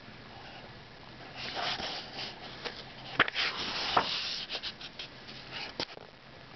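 Paper pages of a picture book being turned by hand: rustling from about a second and a half in, with a few sharp clicks of the paper.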